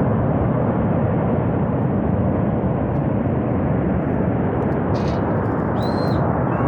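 Glacier-burst flash flood, a torrent of water, mud and debris rushing down the river valley: a loud, steady, deep rushing noise that does not let up.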